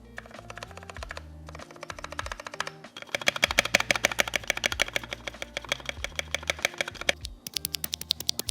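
Mechanical keyboard with Kailh Red linear switches being typed on quickly, a fast run of key clacks with a few brief pauses. The typing is densest and loudest through the middle, with background music underneath.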